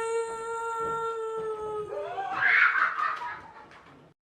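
A woman's voice faking a ghost's crying: a long, steady high wailing hum held on one pitch, which breaks into a louder, wavering cry about two seconds in and then fades out.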